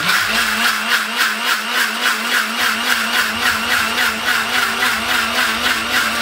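Electric mixer grinder (mixie) switched on suddenly and running steadily, a loud motor hum with a fast, regular throb, as it whips egg and oils into a thick, creamy emulsion.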